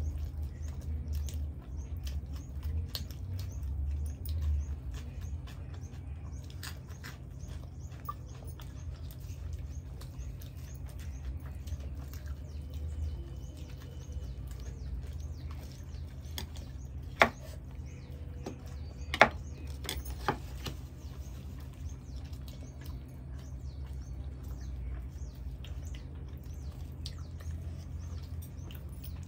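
Close-miked eating of chole bhature: many small wet mouth clicks and smacks from chewing, over a steady low hum. Two sharper clicks come about two seconds apart a little past the middle.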